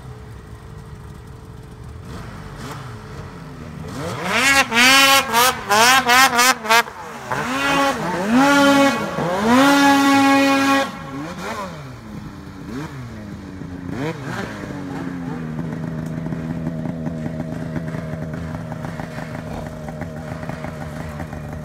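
Two-stroke mountain snowmobile engines in deep snow. From about four to eleven seconds in, a sled is revved hard in quick, repeated bursts of throttle as it climbs a steep slope. From about fifteen seconds in, an engine runs at a steady, even speed.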